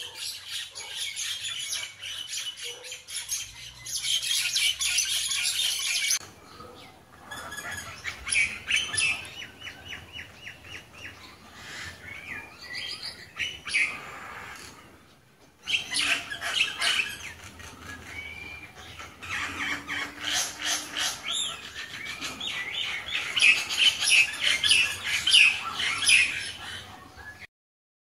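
A flock of small birds chirping together in a tree: a dense, busy chorus of short, rapid chirps that comes in three stretches with brief dips between them. It is loudest near the end, then cuts off suddenly.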